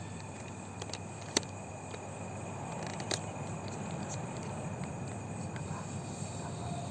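Steady insect chirring, such as crickets, over a low hiss, with two short sharp clicks about a second and a half and three seconds in.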